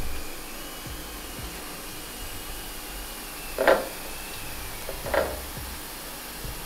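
Two short knocks about a second and a half apart, over a faint steady whir.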